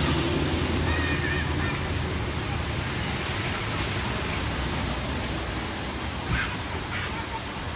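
Steady rain falling, an even hiss. A vehicle's low engine rumble fades away over the first couple of seconds.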